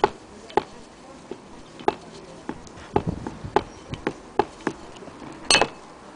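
Antique Willcox & Gibbs hand-crank wheel being turned by its handle, clicking sharply about every half second, with a louder rattling clatter about five and a half seconds in.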